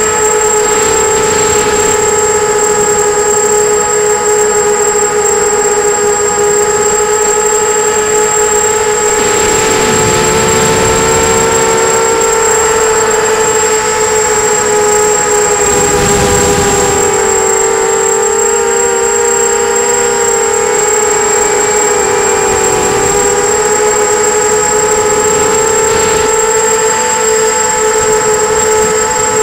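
Brushless motors and propellers of a 250-size FPV quadcopter whining steadily in flight, heard through its onboard camera, the pitch wavering a little with throttle, with a constant high whistle above. Brief rushes of noise come about ten seconds in and again around sixteen seconds.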